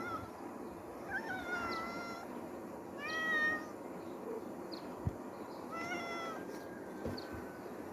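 A cat meowing, about four drawn-out, wavering calls, with a single short knock about five seconds in.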